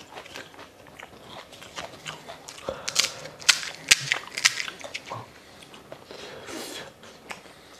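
Crisp fuchka (pani puri) shells crunching and cracking, with a cluster of sharp cracks about three to four and a half seconds in.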